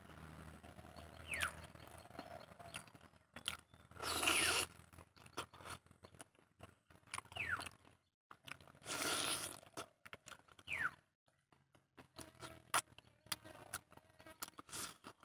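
Close-miked eating by hand: fingers working rice and chicken curry, and chewing and lip-smacking as mouthfuls are taken, as many small clicks, with two louder noisy bursts about four and nine seconds in. A bird gives a short falling whistle three times in the background.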